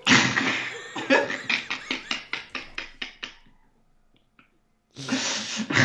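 Hearty laughter: a fast run of breathy bursts that fades out after about three seconds, then breaks out again near the end.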